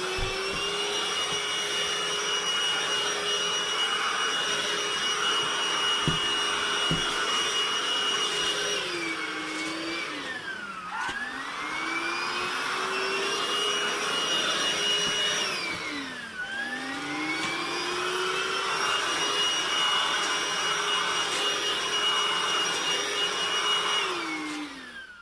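Hoover cordless stick vacuum cleaner running with a steady whine. About ten seconds in its motor winds down and spins back up, again some six seconds later, and it winds down once more near the end.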